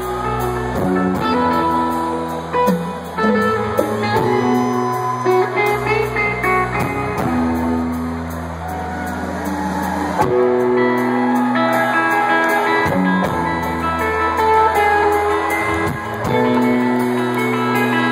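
Live rock band playing slow, held guitar chords over bass, changing chord every second or two, with little or no singing.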